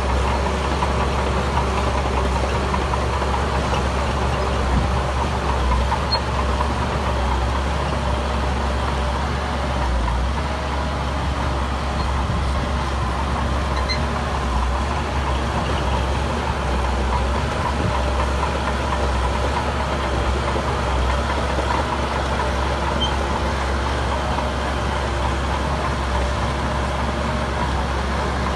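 Heavy diesel engine of earthmoving machinery running steadily, a deep engine sound that holds an even level throughout.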